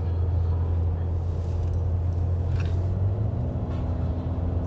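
Steady low drone of a car's engine and tyres while driving along a road, heard from inside the car; a higher steady tone joins the drone about three seconds in.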